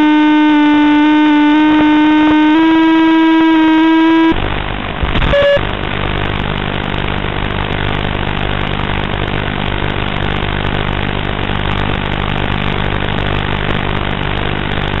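A held electronic tone, its pitch stepping slightly up and down, cuts off suddenly about four seconds in. A click and a short beep follow, then a steady hiss with a low hum, typical of an FPV video link's audio channel.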